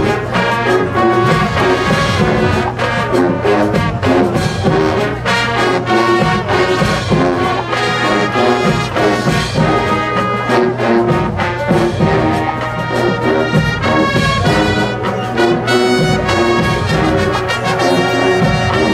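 Marching band playing at full volume: massed brass (trumpets, trombones, sousaphones) holding loud chords, with a drumline's hits underneath.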